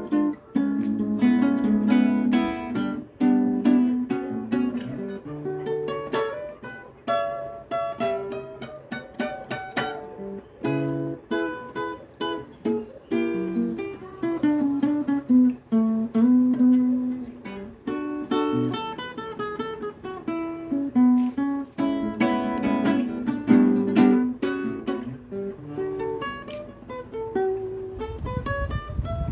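Guitar played solo, an improvised piece of plucked notes and strummed chords, with one note after another throughout.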